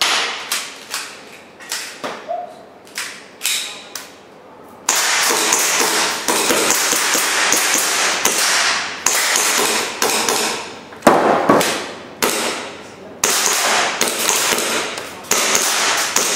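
Airsoft pistol shots on a shooting stage: sharp cracks and clacks, at first about two a second, then from about five seconds in coming thick and fast over a dense noisy background.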